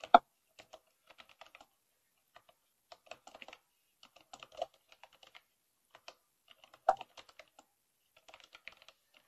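Typing on the Astrohaus Freewrite Alpha's keyboard: irregular runs of soft, clicky keystrokes with pauses between them, and two louder key knocks, one right at the start and one about seven seconds in.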